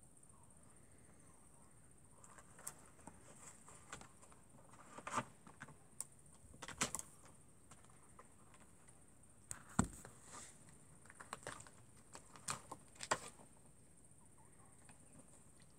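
Faint scattered clicks and light rustles, busiest in the middle stretch, as a small pet moves about among dry twigs and wooden planks. A steady high insect chirr runs underneath.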